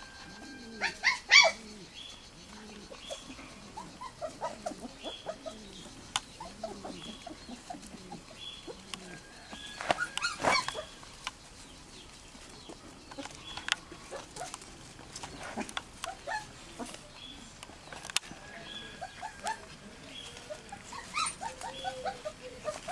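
Australian Shepherd puppies yipping and whining in short, high calls, on and off throughout, with louder yelps about a second in and again about ten seconds in.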